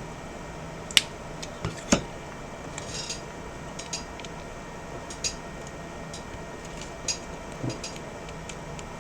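Small hard clicks and taps of tools and phone parts being handled during iPhone reassembly: two sharp clicks about one and two seconds in, then scattered lighter ticks over a steady low hum.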